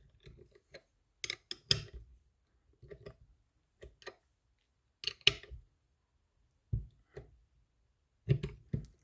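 Light metal clicks and taps in small clusters, about every second and a half, as a flat reel wrench is fitted over the handle nut of a Penn Senator II conventional reel and turned to tighten it.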